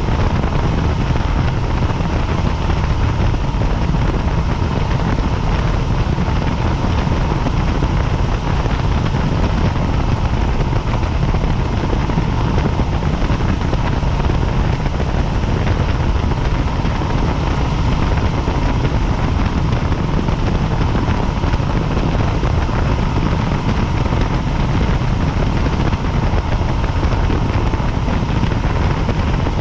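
Helicopter in flight, heard from on board: a steady, loud rotor and engine drone, heaviest in the low end, with a faint steady whine above it.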